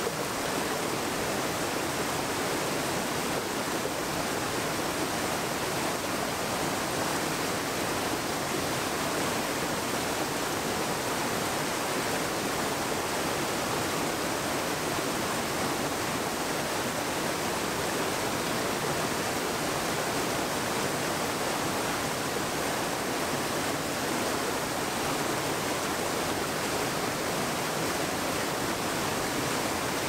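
Steady rush of a forest stream flowing over rocks, an even wash of water noise with no breaks.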